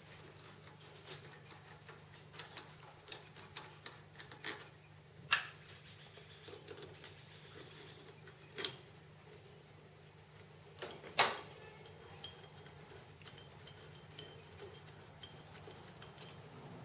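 Small metal clicks and clinks of a clamping bolt and washer being undone and lifted off an aluminium part on a milling machine table, with three sharper knocks about five, eight and a half and eleven seconds in. A faint steady low hum runs underneath.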